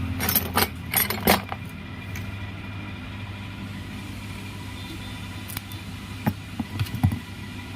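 Wire cutters snipping through the leads of a wet grinder's old run capacitor: a quick run of sharp clicks in the first second and a half, then a few scattered clicks and handling knocks later on, over a steady low hum.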